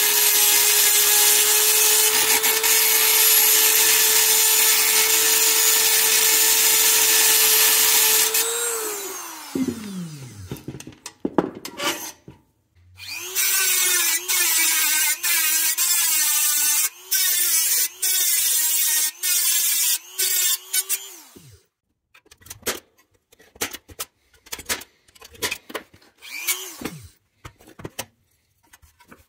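A high-speed rotary tool with a small grinding bit grinds the pressed-steel axle end and body tabs of a 1962 Tonka pickup. Its steady whine winds down about nine seconds in. It starts again about four seconds later, its pitch wavering and dipping as it bites into the metal, and winds down once more. Then come light clicks and knocks of the metal parts being handled, with one more brief spin of the tool.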